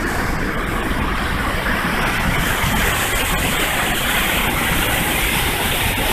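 Waterfall water rushing and churning through channels between boulders: a loud, steady rush with a deep rumble underneath.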